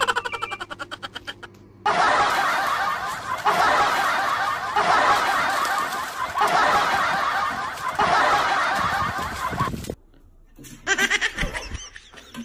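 Loud laughter in long stretches, after a quick run of fading pulses at the start. A second short burst of laughter comes near the end.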